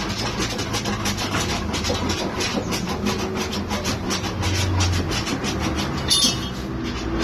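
Body filler on a van's rear body panel being sanded by hand: abrasive paper scraped back and forth over the panel in quick, even strokes.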